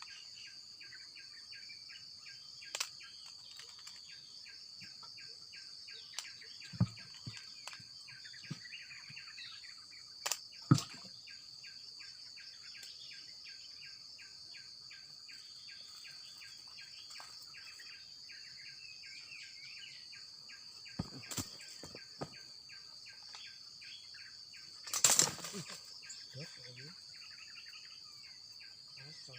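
Steady high-pitched drone of insects, with a fast run of pulsing chirps beneath it. Scattered sharp clicks and knocks, the loudest a short noisy burst near the end.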